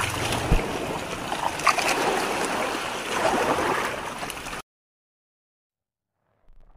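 Seawater splashing and sloshing as fish jump and thrash in a fishing net being hauled against a bamboo raft. A sharp knock comes about half a second in and another about a second later. The sound cuts off suddenly about two-thirds of the way through.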